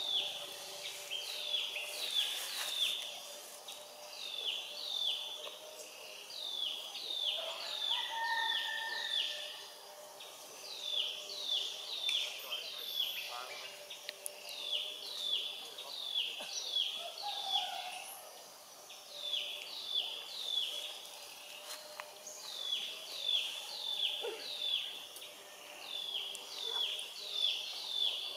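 A bird calling over and over outdoors: quick runs of three to five short, high, downward-slurred notes, one run every couple of seconds, with a few fainter calls from other birds in the background.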